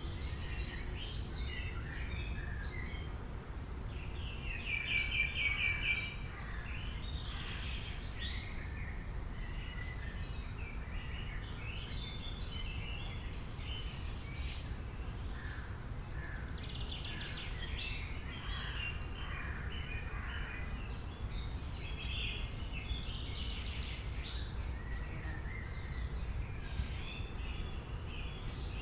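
Many small birds chirping and calling over one another, with a quick trill of rapidly repeated notes about five seconds in, over a steady low background rumble.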